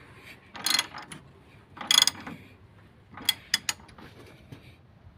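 Ratchet wrench clicking in several short runs as it turns the mounting bolt of a truck shock absorber.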